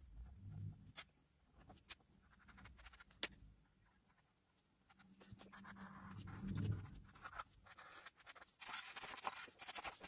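Faint pencil scratching on drawing paper, with a few light taps at first. Near the end it turns into quick, dense shading strokes.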